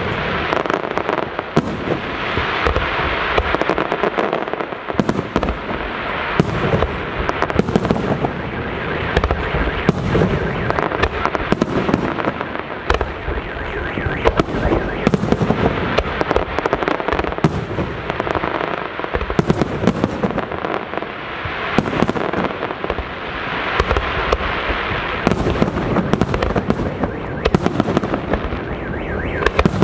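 Aerial fireworks display: many shells bursting in quick succession, with continuous crackling between the louder bangs.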